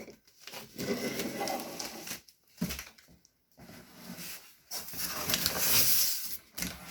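Cardboard box packaging rubbing and rustling as a computer monitor is slid out of its box, in two stretches of scraping noise.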